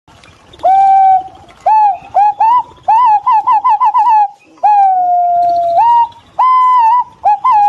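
Green pigeon giving its whistled song: a long clear note, then a quickening run of short upswept whistles, a long falling whistle that steps up at its end, and a few more notes.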